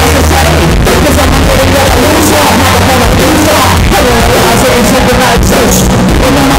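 Live rock band with electric guitar playing at full volume through the venue's sound system, heard from within the crowd on a phone microphone that is close to overloading.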